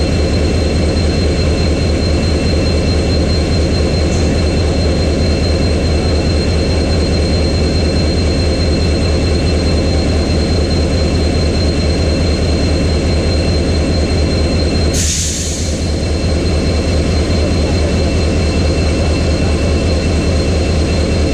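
WDP-4B diesel locomotive's EMD 16-cylinder two-stroke 710 engine idling with a steady deep hum and faint steady high whines over it. A brief hiss cuts in about fifteen seconds in.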